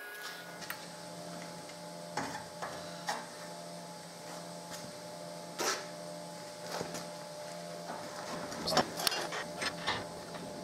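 Light metal clicks and knocks as a welded steel piece is handled and set into a cast-iron bench vise, coming thicker near the end. Under them is a steady low hum.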